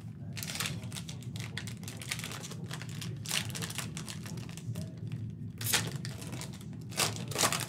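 Cardboard trading cards being flipped and slid past one another in the hand: a run of dry, papery swishes and flicks, the loudest near the end.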